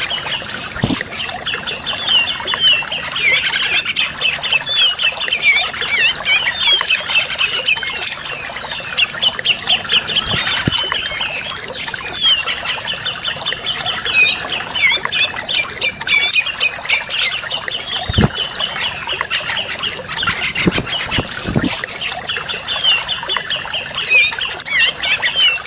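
Grey-cheeked bulbuls (cucak jenggot) chattering continuously in fast runs of notes, as played in a bird-lure recording. A few brief soft thumps sound under the calls about a second in and again later.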